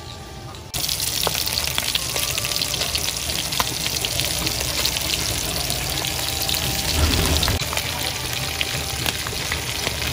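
Whole fish frying in hot oil in a wok: a steady sizzle full of small crackles and pops, starting abruptly about a second in.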